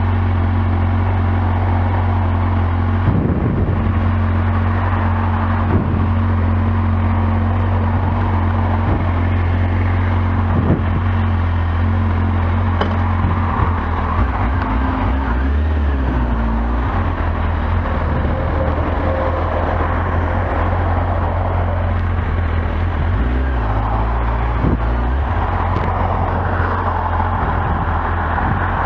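Kawasaki Z750S's inline-four engine idling steadily, then changing pitch about halfway through and again later as the bike is ridden off at low speed.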